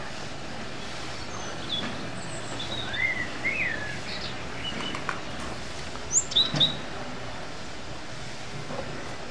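Small birds chirping and calling over a steady outdoor background hiss, with a quick cluster of three louder chirps about six seconds in.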